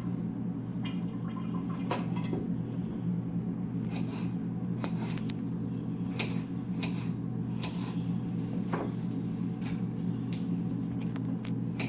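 Kitchen counter work: irregular light clicks and knocks as potato pieces and the wrapped pork chops are handled, over a steady low hum.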